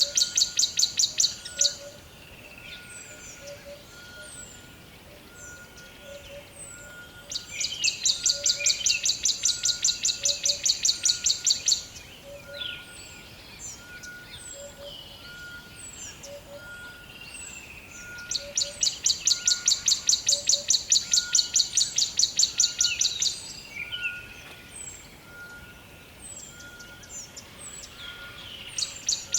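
Rainforest animal chorus. A loud, high, rapidly pulsing trill sounds for about four to five seconds, three times, about every eleven seconds. Between the trills come scattered short high chirps and a steady run of short notes about once a second.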